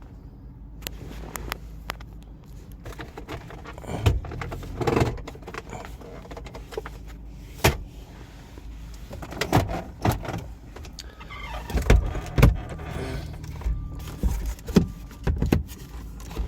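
Irregular clicks, knocks and a few heavier thumps of a car being handled, over a steady low hum.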